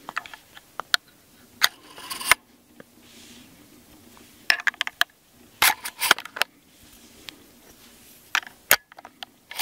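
A Cimarron 1886 lever-action rifle being loaded with .45-70 cartridges pushed one by one through the spring-loaded loading gate in its receiver. It makes a string of irregular sharp metallic clicks and clacks of brass against steel, in small clusters.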